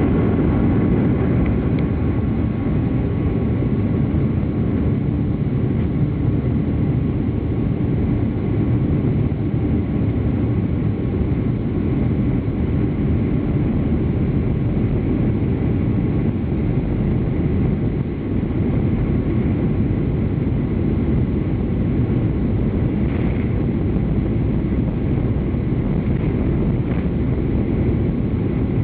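Boeing 737-500's CFM56 jet engines running steadily: a low, even rumble with a faint steady whine above it.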